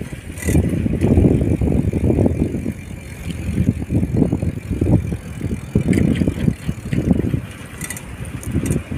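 Wind buffeting a moving camera's microphone: loud, uneven gusts of low rumble, with a few light clicks about two-thirds of the way through.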